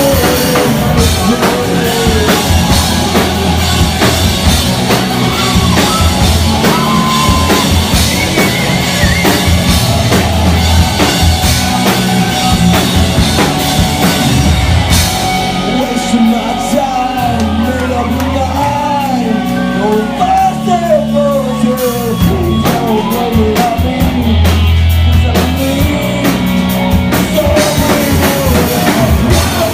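Live rock band playing loudly, with a drum kit and a singer's voice over the instruments.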